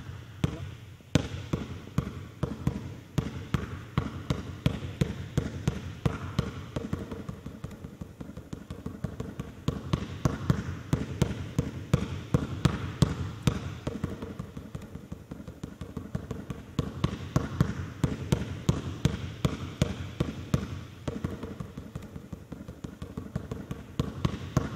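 A basketball dribbled low and fast on a hardwood court floor in a V pattern, switching hands, in a quick, even run of bounces.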